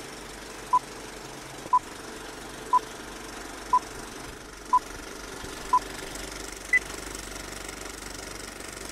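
Film-leader countdown: six short beeps at the same pitch, one per second, then a single higher beep. Under them runs the steady mechanical clatter of a running film projector.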